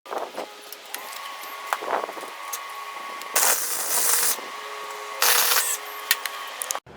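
Welding arc crackling and hissing in two short bursts, one lasting about a second and a shorter one later, as a steel patch is welded onto a worn-through snow blower skid shoe. A steady hum and scattered small clicks come between the bursts.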